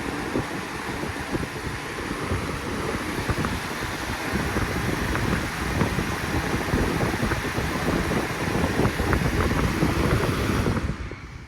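A 2002–2003 Lasko box fan is running, its airflow buffeting the microphone with wind noise. The sound gets a little louder about halfway through and drops away near the end.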